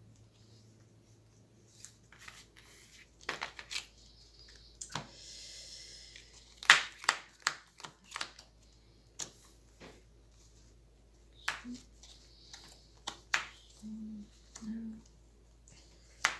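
Hero Realms playing cards handled on a table: sharp clicks and slaps as cards are picked up and laid down, with a short riffling shuffle about five seconds in.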